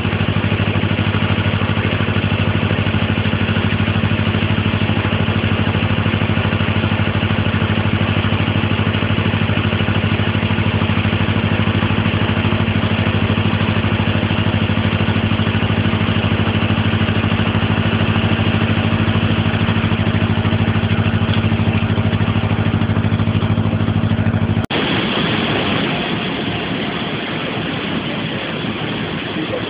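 A canal narrowboat's inboard engine running steadily under way. About 25 seconds in, it gives way abruptly to the even rush of white water churning into a lock chamber.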